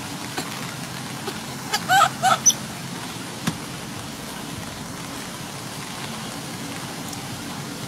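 Baby macaque giving two short high calls about two seconds in, a third of a second apart, with a brief higher one just after, over a steady hiss.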